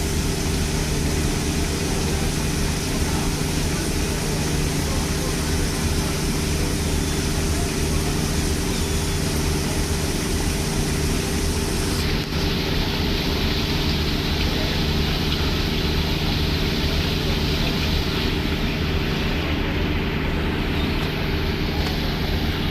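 Boat engine running steadily at constant speed under a broad steady hiss; about halfway through the high part of the hiss drops away while the engine note stays the same.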